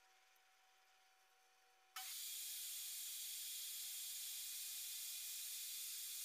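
Table saw motor switched on about two seconds in, spinning up and then running steadily with a high, hissing whine; the blade runs free, with no cut heard.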